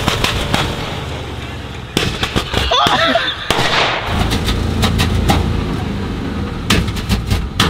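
Old water truck's engine running rough under hard acceleration, spitting and sputtering with clusters of sharp backfire pops and bangs: a misfiring engine that sounds to be running on only four of its cylinders.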